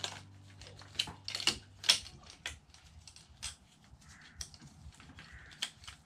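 Irregular light plastic clicks and rustling as a wire harness's bundled wires and plug connectors are handled and fed through the ATV's frame, loudest about one to two seconds in.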